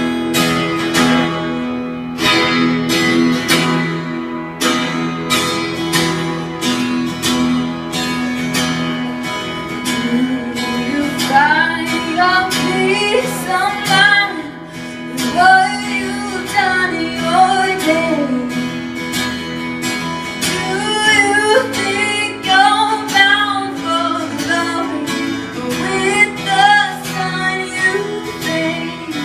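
Song intro: a strummed acoustic guitar, with a gliding melody line joining it about eleven seconds in.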